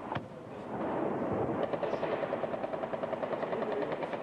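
A single sharp gunshot just after the start, then a long burst of automatic gunfire from about a second and a half in: a rapid, even rattle of shots kept up almost to the end.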